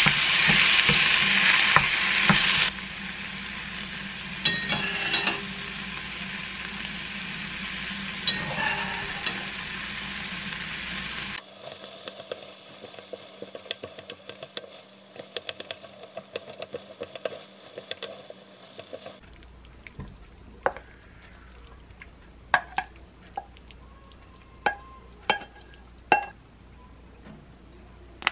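Tomato sauce with onions and cherry tomatoes sizzling in a frying pan while a spatula stirs it, loudest in the first few seconds. Later, spaghetti is tossed through the sauce in the pan. The last several seconds are much quieter, with scattered light clicks and taps.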